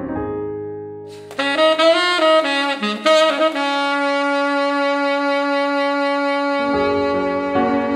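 Forestone RX UL tenor saxophone (metal mouthpiece, jazz reed) playing a quick run of notes a little over a second in, then holding one long note over a piano backing. A piano chord fades out at the start, and piano chords come back in under the held note near the end.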